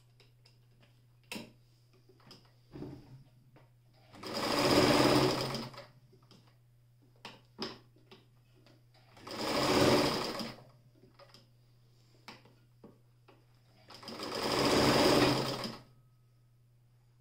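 Alfa 50 heavy-duty electric sewing machine stitching in three short runs, each swelling up and dying away over a second or two. Small clicks from handling the work and the machine fall between the runs, over a faint steady low hum.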